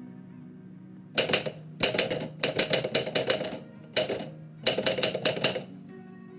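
Typewriter keys struck in quick runs, four bursts of rapid clacking with short pauses between them, starting about a second in and stopping shortly before the end, over faint background music.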